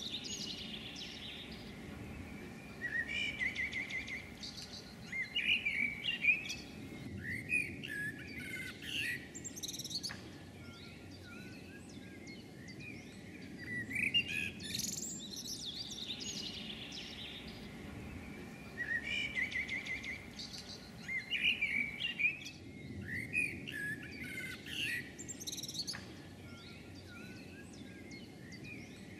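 Songbirds chirping and singing in repeated bursts of song over a steady low background noise.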